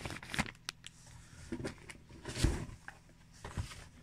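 Rummaging in a cardboard box of snack packets: rustling packaging and light knocks against the cardboard, loudest a little past halfway.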